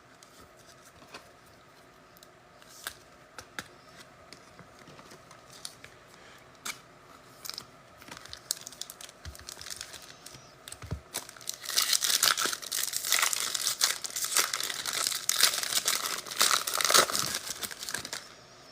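Foil wrapper of a football trading-card pack being torn open and crinkled by hand. A few light clicks and taps of card handling come first, and the crinkling starts about two-thirds of the way in and lasts several seconds.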